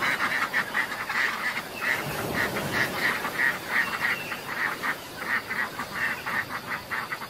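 Mallard duck quacking in a long run of short calls, about three a second, over a steady hiss.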